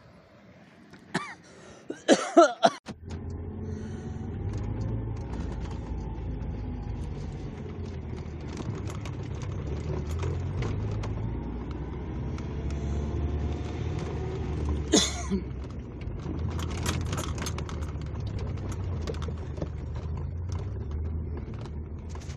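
Pickup truck driving, heard as a steady low rumble with faint rising and falling engine tones and scattered knocks and rattles. It sets in abruptly about three seconds in, right after a few sharp knocks, and cuts off suddenly near the end.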